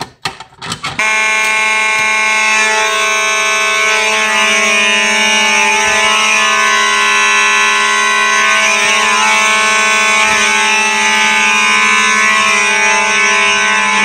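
Simplex 4903 and 2901 series fire alarm horns sounding together in a loud, steady, buzzing tone, set off about a second in. Just before the horns start there are a few clicks from a Simplex manual pull station being pulled down.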